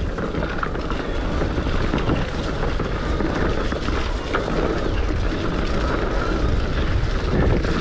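Steady riding noise from an electric mountain bike on a wet, leaf-covered trail: tyres rolling over damp leaves and mud, mixed with wind on the microphone.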